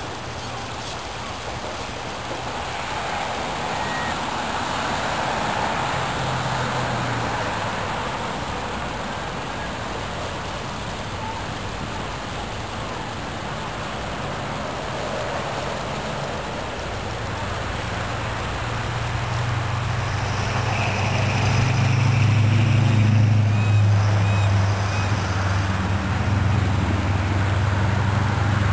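Steady outdoor rush of a wide river and wind. In the second half a low, steady engine hum comes up and becomes the loudest sound, and a few faint short high chirps come near the end.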